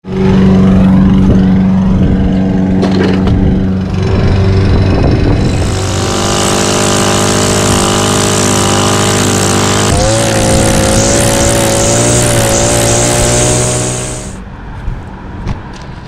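Gas string trimmer engine running at high speed, with the whir of its line cutting grass joining in about five seconds in. Its pitch shifts and wavers around ten seconds, and the engine cuts off a couple of seconds before the end.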